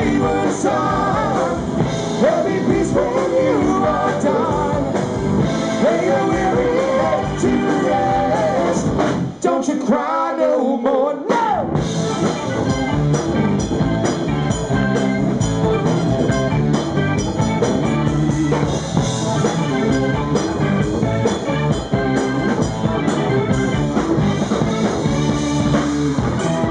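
Live rock band playing: male lead vocals over electric guitars, bass, drum kit and keyboard. About ten seconds in, the bass and drums drop out for a couple of seconds, then the full band comes back in.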